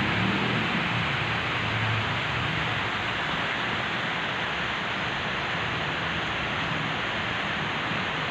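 Steady, even hissing noise with no distinct events.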